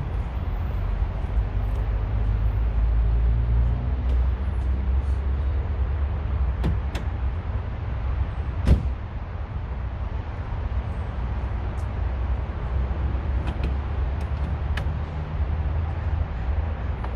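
Steady low rumble of nearby highway traffic, with a few sharp clicks and knocks, the loudest about nine seconds in.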